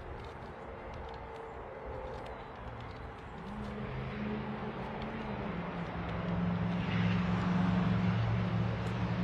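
A motor vehicle's engine running and drawing nearer, its steady low hum growing louder to a peak late on.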